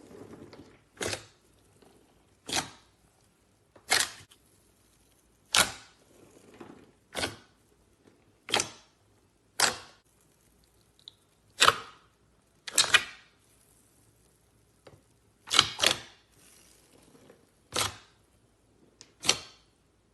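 Slime being played with by hand, giving sharp pops about every second and a half, some in quick pairs.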